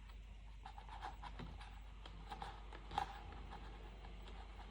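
Pen or marker scraping in short faint strokes on a plastic bottle, drawing the line where it will be cut, with a small click about three seconds in.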